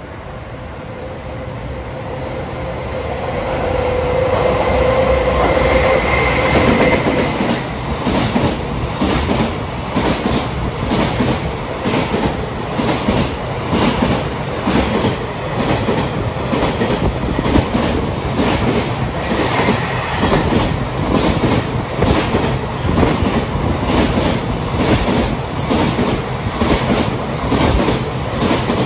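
Freight train of container wagons passing at speed. The noise rises as it approaches, with a brief steady whine in the first few seconds, then the wheels clatter over the rail joints in a fast, regular clickety-clack.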